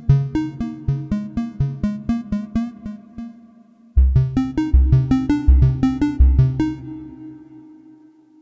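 Roland JV-1080 software synthesizer playing a lead preset from the Widescreen Ambient patch set: a quick phrase of short plucked notes, about three a second. About four seconds in, a second phrase starts with deep bass notes beneath it, then rings out and fades away.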